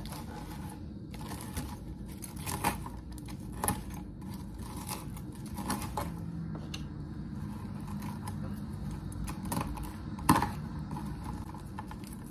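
Kitchen knife chopping bacon on a wooden cutting board: irregular knocks of the blade against the board, a second or more apart, the loudest about ten seconds in.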